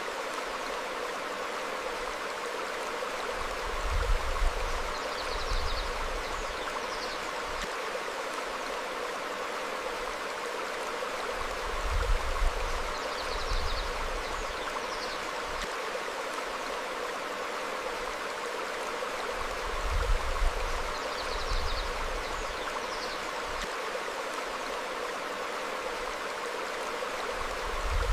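A stream flowing over rocks, a steady rushing and babbling, with a brief low rumble about every eight seconds and a few faint, short, high bird chirps.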